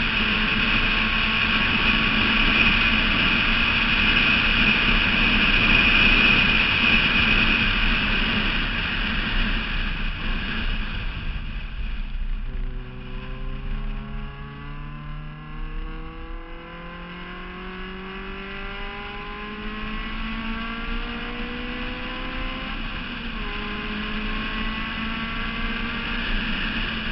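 Wind rushing over the mic of an exterior camera on a Honda S2000 at track speed, loud for the first ten seconds or so and then easing. The car's four-cylinder engine then comes through accelerating out of a corner, its pitch climbing, with a couple of drops at gear changes.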